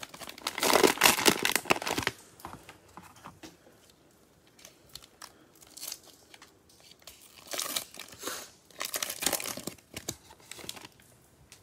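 Clear plastic wrapper of a Prizm Baseball cello pack crinkling and tearing as it is pulled open and the cards are slid out. There is a loud stretch of crinkling for the first two seconds, quieter rustling in the middle, and fresh bursts of crinkling in the last few seconds.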